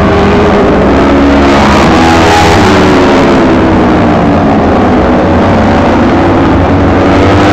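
Several Kawasaki Ninja 250 four-stroke racing motorcycles accelerating and revving through the corners, their engine notes overlapping and rising and falling in pitch as the bikes shift and pass.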